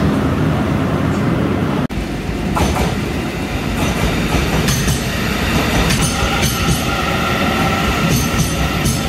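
A brief low rumble, then, after a cut about two seconds in, a Taiwan Railway EMU900 electric multiple unit moving past. Its wheels click irregularly over the rail joints over a steady high whine.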